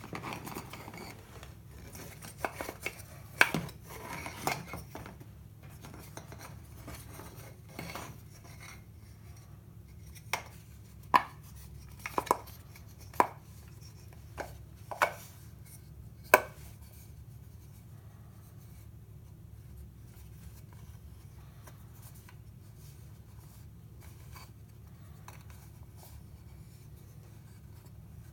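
Wooden triangular panels of a foldable icosahedron globe clacking and knocking against one another as they are folded up by hand: two clusters of sharp clacks, then quieter rubbing and handling of the assembled globe.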